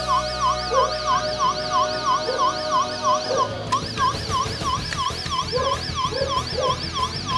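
Electronic siren of a Bandai Robo Racer toy police car, set off by its push button, warbling rapidly up and down about three times a second. A steady electronic tone sounds under the warble for the first half and stops about halfway through.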